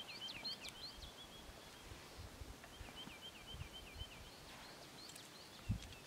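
A small songbird singing three quick phrases of short, high repeated notes, about six notes a second. Soft rustles and a light thump from hands working in the stony ground come near the end.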